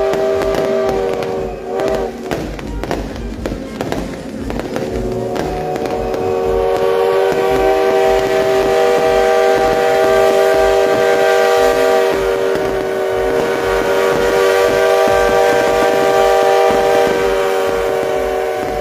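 Show soundtrack of long held chords, broken off about a second and a half in by a stretch of bangs and crackles like fireworks or staged explosions. The chords return after about four and a half seconds and change twice.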